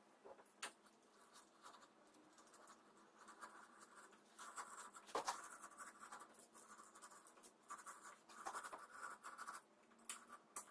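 Faint scratching of a utility knife blade slicing through strips of videotape against a wooden strip, in short runs with a few sharp clicks.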